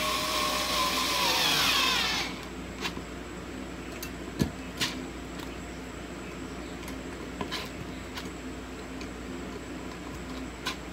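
Small cordless electric screwdriver running as it drives a screw into a metal bracket. Its whine drops in pitch as the motor slows, then cuts off about two seconds in. Scattered light clicks and knocks follow as the metal parts and the tool are handled.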